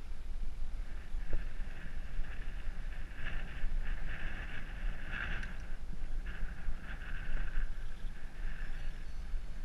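Wind buffeting the microphone of a bike-mounted action camera as the bicycle rolls along an asphalt road: a constant low rumble with a gusting hiss that rises and falls.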